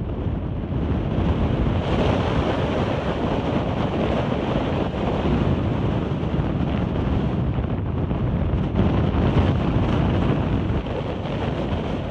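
Strong wind buffeting the microphone in uneven gusts, a loud low rumbling rush with no pauses.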